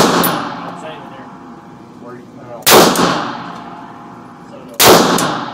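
Three shots from a Hi-Point 9mm pistol, about two seconds apart, the first right at the start; each sharp crack rings out with a long echo off the indoor range's walls.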